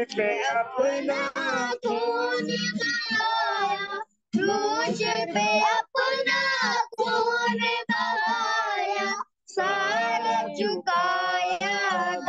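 A single high voice singing a devotional song, phrase by phrase, with short breaks between phrases.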